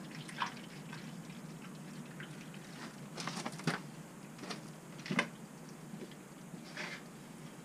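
Used oil draining from a tractor's engine through a hose into a metal bucket: a steady trickle into the oil already in the bucket, with a few sharp drip ticks.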